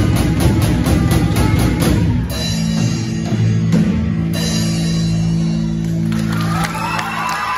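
Live rock band with drum kit and electric guitar: the drums hammer out a fast beat, then about two seconds in the guitar rings out on a long held chord over cymbal crashes, the close of the song.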